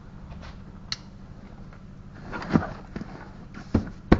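Plastic clips and straps of a rear-seat dog car barrier being handled, giving a handful of short sharp clicks and knocks, the loudest at the very end, over a low steady hum.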